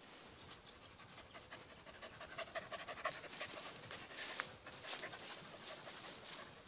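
Dog panting rapidly and rhythmically close by.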